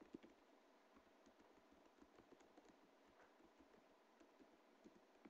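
Faint computer keyboard typing: scattered soft keystrokes over near silence.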